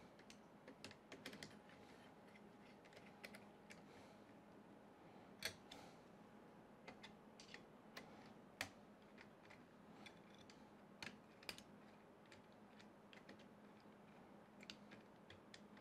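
Near silence broken by scattered faint metal clicks and ticks as bolts on a 3D printer's frame are tightened by hand with a small tool. A couple of the clicks, about midway through, are a little louder.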